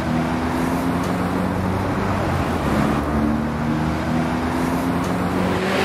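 Street traffic: motor vehicle engines running with steady road noise.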